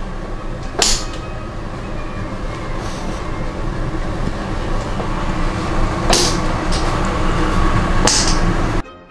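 Background soundtrack of the video: a steady low rumble with sustained tones and three sharp hits, about one second in, about six seconds in and about eight seconds in. It cuts off abruptly near the end.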